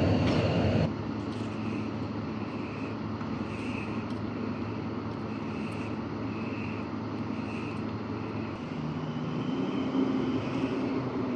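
Diesel-hydraulic shunting locomotive (LDH class 82) with its engine running steadily, the engine note rising and getting louder near the end. A louder passing-train sound cuts off about a second in.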